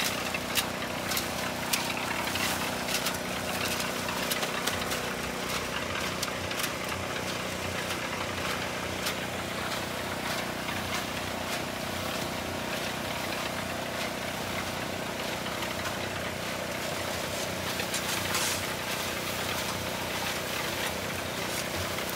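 Small generator engine running steadily while a portable cement mixer's drum turns, with scattered scrapes and clatter from concrete mix being shovelled and tumbled in the drum.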